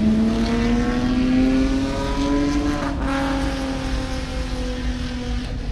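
A vehicle engine revving hard out on the lot, its pitch climbing slowly through the first half, briefly breaking about three seconds in, then holding and easing off slightly as it fades a little.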